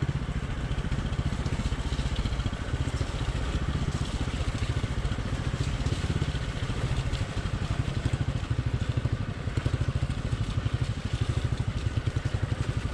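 Hero XPulse 200 single-cylinder motorcycle engine running steadily while riding a rough trail, its exhaust a quick, even pulsing throb.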